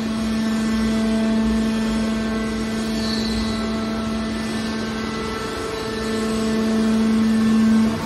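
Hydraulic power unit of a scrap metal baler running with a steady hum while the ram pushes a compressed bale of aluminium scrap out of the chamber, growing louder in the last couple of seconds as it works under load.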